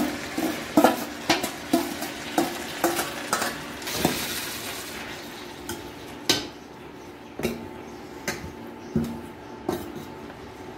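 Steel spoon knocking and scraping a steel bowl and stirring chopped greens in a steel pan, a quick run of metallic clinks about twice a second over a sizzle as the greens go into the hot oil with the fried onions. After about five seconds the sizzle fades and the clinks come more sparsely as the stirring goes on.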